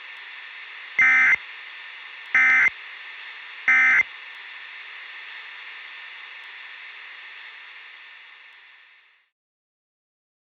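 Three short Emergency Alert System end-of-message data bursts (SAME EOM tones), about 1.3 seconds apart, marking the end of the alert message. They sound over a steady hiss of static that fades out near the end.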